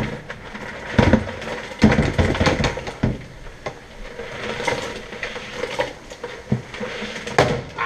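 Live crawfish clattering and sliding out of a plastic bucket into a pot of boiling water, their shells scraping and knocking in irregular bursts, with several louder knocks.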